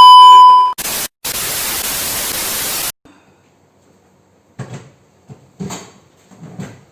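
Loud electronic beep lasting under a second, then two bursts of TV-static hiss, the second about two seconds long: an edited transition sound effect. A few faint short knocks or rustles follow near the end.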